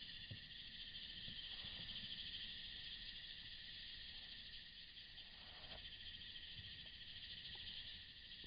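A steady, shimmering chorus of chirping insects, with faint low knocks of the kayak's plastic hull.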